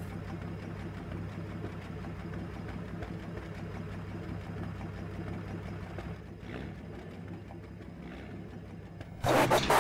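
Lorry engine idling with a steady low hum. Near the end a loud rush of noise about a second long cuts in over it.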